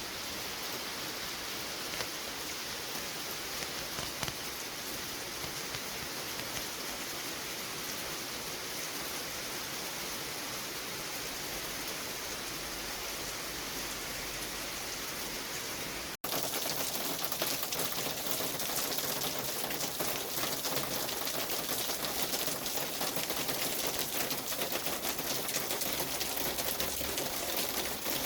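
Steady hissing ambient noise with no distinct events. About sixteen seconds in it drops out for an instant, then resumes louder and rougher, thick with fine crackling ticks.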